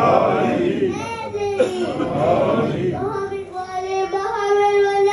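A young boy chanting an Arabic supplication into a microphone in a high voice, holding long, wavering notes with short breaks between phrases.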